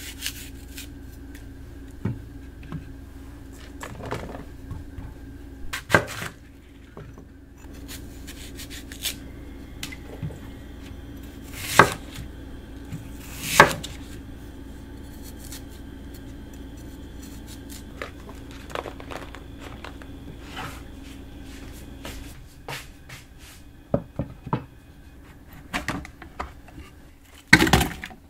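Kitchen knife cutting apples and an Asian pear on a wooden cutting board: scattered knocks of the blade against the board, two of them louder, with a few more knocks near the end. A steady low hum underneath stops about three-quarters of the way through.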